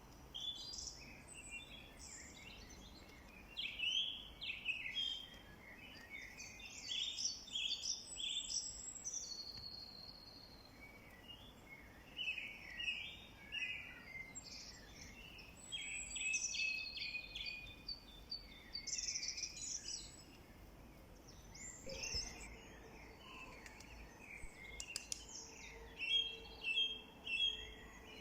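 Several songbirds singing at once, a steady stream of overlapping chirps and trills, with a run of quick repeated notes near the end.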